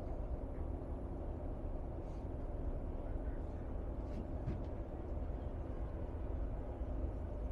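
Steady low rumble of a river tour boat underway, with a few faint clicks about halfway through.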